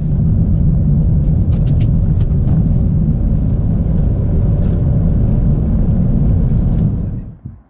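Car driving on an open road, heard from inside the cabin: a steady low rumble of road and engine noise that cuts off about seven seconds in.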